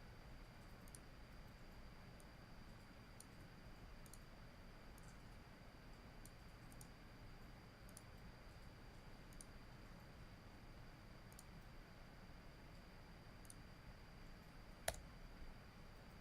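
Faint computer mouse clicks at irregular intervals of about a second, with one sharper, louder click near the end, over quiet room tone with a faint steady high whine.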